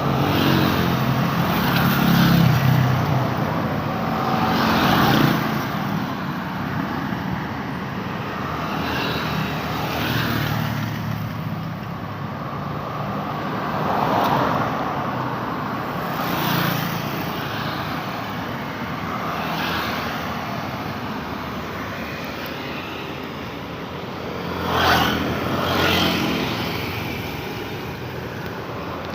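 Busy road traffic: a steady stream of cars and motorcycles passing one after another, each swelling and fading over the constant hum of the road, the loudest pass near the end.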